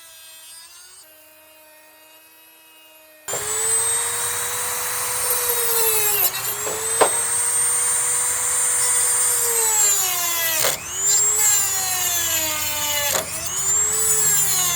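A small electric power tool's motor whines, running lightly at first, then much louder under load from about three seconds in as it works on the pins. Its pitch sags and recovers three times as the tool bites, with a sharp click midway.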